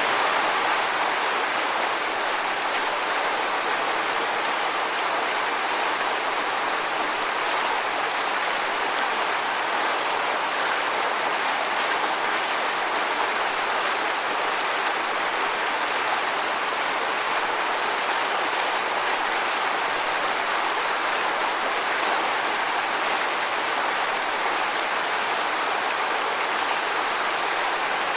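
Waterfall: falling water splashing in a steady, even rush with no change.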